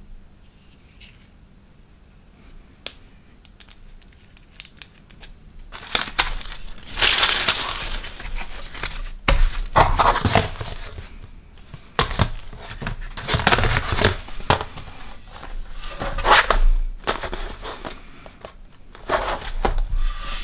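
A few faint clicks, then from about six seconds in repeated loud bursts of rustling and scraping with a few dull knocks: a cardboard box of paint tubes and its plastic tray being handled and closed on a tabletop.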